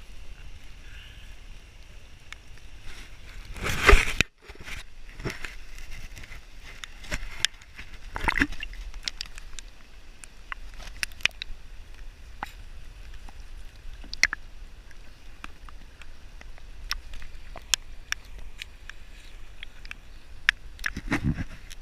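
Canoe being paddled through floodwater: water sloshing and dripping around the paddle and hull, with scattered small knocks and clicks and a louder splash about four seconds in.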